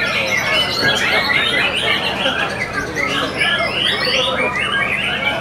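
White-rumped shamas singing together in a dense, overlapping chorus of quick whistled phrases, sweeping notes and chatter, with no let-up.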